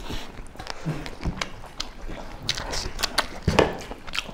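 People eating mutton leg by hand, biting and chewing the meat off the bone: an irregular run of short clicks and smacks.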